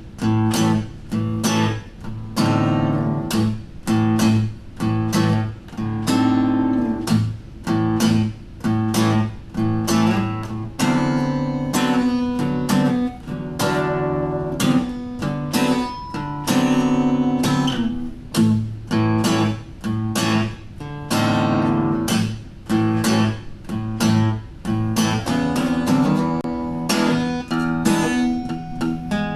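Acoustic guitar music: chords strummed one after another, with short breaks between them.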